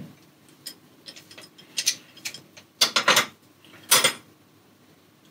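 Metallic clicks and clanks of a tool and threaded pipe fittings being worked at a heating boiler's pipe connections while a pipe is unscrewed to hook the system to the water supply for topping up pressure. A run of short sharp clicks is followed by two louder, longer scrapes about three and four seconds in.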